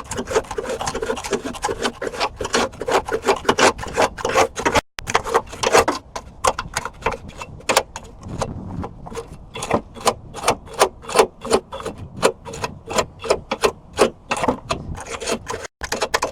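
Small wire brush scrubbing rust and naval-jelly residue off a steel car hood latch: rapid, rasping back-and-forth strokes of wire bristles on metal, about three a second.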